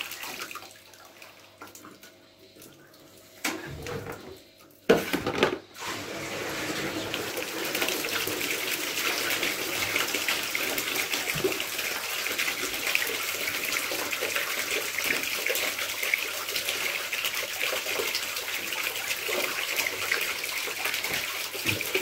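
A few clunks as a plastic basin is swapped under the radiator. From about six seconds in, a steady stream of dirty water pours from the bottom outlet of a blocked central-heating radiator into a plastic basin as it is flushed of black sludge.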